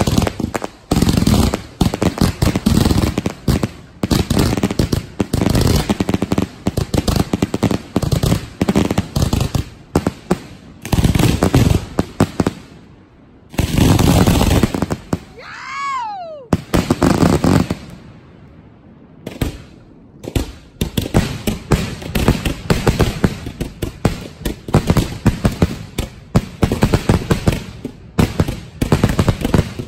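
A finale barrage of 2.5-inch firework salutes going off close by: a rapid, overlapping string of loud bangs with two short lulls midway. Around the middle a whistling tone rises and falls.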